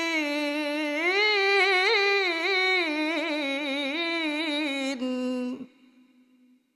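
A male qari's solo voice in tajwid Quran recitation, holding the closing syllable of 'musrifin' in one long ornamented melisma. The pitch steps up about a second in and wavers with quick turns, then the voice stops about five and a half seconds in.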